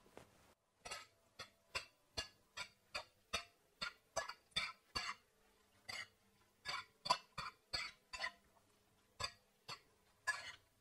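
Two metal forks tossing a salad in a ceramic bowl: short, irregular clinks and scrapes of the tines against the bowl, roughly two or three a second.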